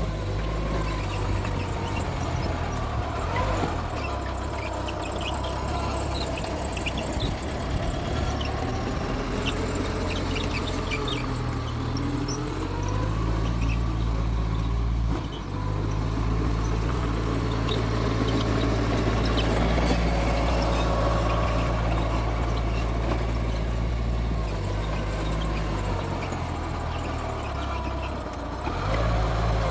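Mitsubishi G2 bulldozer's diesel engine running under load while pushing soil, its note shifting a few times. Wavering squeals and rapid light clanks from the crawler tracks run over it.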